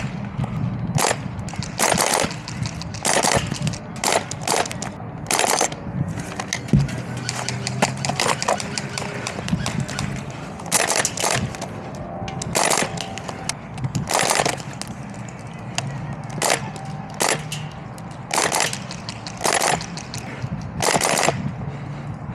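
Airsoft guns firing: about fifteen short bursts and single shots at irregular intervals, some a second apart and some several seconds apart.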